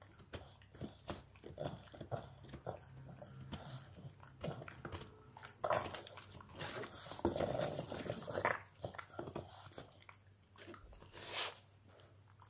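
A pug gnawing on a long, hard chew stick: irregular crunching and scraping bites that come thicker and louder about midway through.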